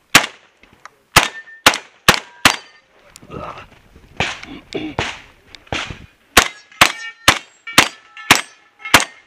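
AK-pattern semi-automatic shotgun fired in quick strings: five shots in the first two and a half seconds, a gap with softer knocks and movement, then six more shots about half a second apart. Steel targets ring after the hits in the second string.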